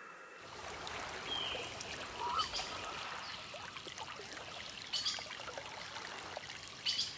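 Water trickling in a shallow stream, with small drips and a couple of short chirps, coming in just after the start.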